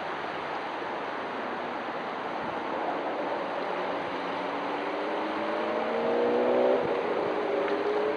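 A vehicle engine accelerating, several tones rising slowly in pitch through the second half and loudest near the end, over a steady rushing background noise.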